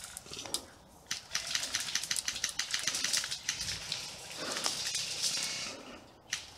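Dry, crackling rustle of leaves and branches brushing close against the player, a rapid run of small clicks.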